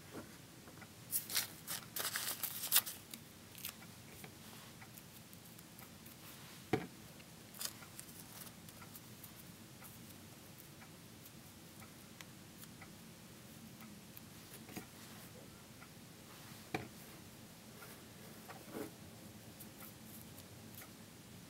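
Thin paper crinkling and rustling as fingers twist and roll small pieces by hand, with a cluster of crisp crackles about one to three seconds in and a few single soft taps later on.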